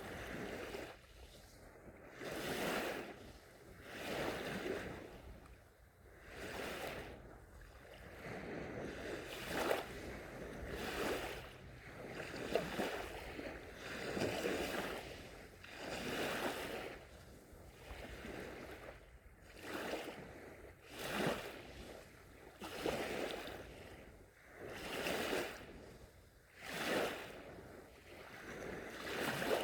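Small, gentle sea waves breaking and washing up a shore, a swell of surf noise about every two seconds.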